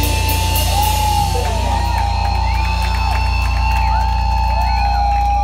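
A rock band playing loud, heavy music live. A steady low drone runs under a held high note, with sliding tones arcing up and down over it.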